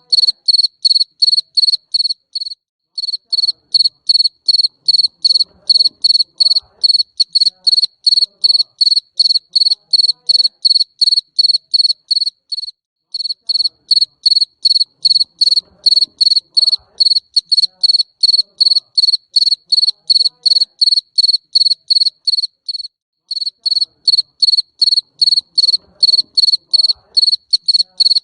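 A cricket of the kind called jangkrik mbering chirping in a fast, even series of high, pure-toned chirps, about three a second, pausing briefly three times.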